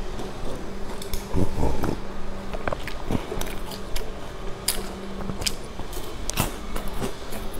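Close-up eating sounds: sipping milk through a straw, then biting and chewing a chocolate-coated snack, with sharp crunchy cracks scattered throughout. A steady low hum runs behind.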